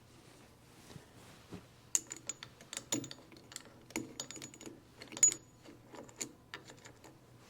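Small steel parts of an antique car's steering gear box clicking and clinking against each other as they are worked into place by hand. The quick, irregular taps start about two seconds in, and a few of them ring briefly.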